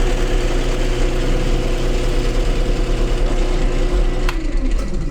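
Woodworking power tool's electric motor running steadily, then switched off with a click about four seconds in and winding down.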